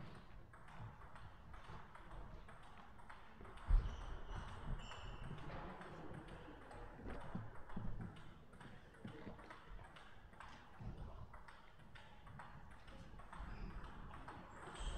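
Table tennis balls clicking off bats and the table in an ongoing rally, a steady string of sharp clicks about two or three a second. A single heavier thump about four seconds in.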